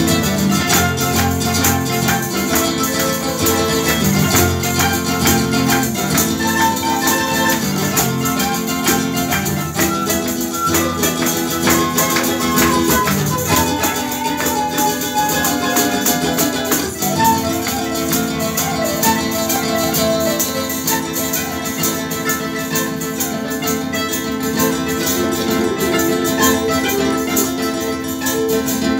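Instrumental tarantella played by a small folk ensemble of guitar, mandolin and flute, over steady fast jingling percussion.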